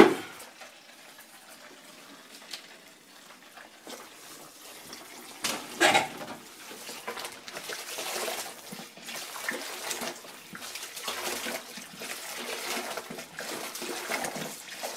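Tap water running into a sink while a towel is scrubbed by hand in detergent suds, the swishing and sloshing getting busier from about seven seconds in. A short, louder sound stands out about six seconds in.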